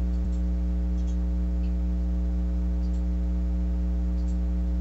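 Steady electrical mains hum, a low buzz with a stack of overtones, unchanging throughout.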